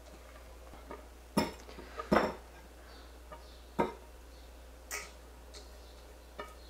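Fork and silicone spatula knocking and scraping against a stainless steel mixing bowl as salad is tossed and scraped out into a serving bowl: about five separate clinks, the loudest a little after two seconds in.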